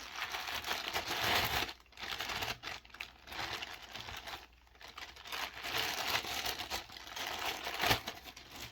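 Packaging being handled and crinkling in irregular rustling stretches, with a single knock near the end.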